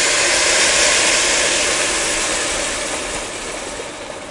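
Hot water poured from an electric kettle onto basmati rice in a pot, a steady rushing hiss that slowly fades.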